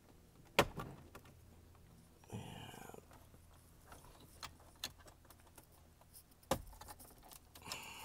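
Plastic dashboard trim around a 2013 Ford Taurus instrument cluster being pried and popped loose by hand: a sharp knock about half a second in, a brief rasp around two and a half seconds, a few light clicks, and another knock near the end.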